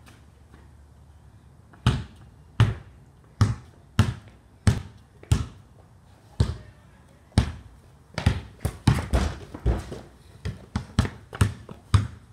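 Basketball dribbled on a concrete driveway: a string of sharp bounces starting about two seconds in, roughly one and a half a second, then coming quicker and more crowded past the middle.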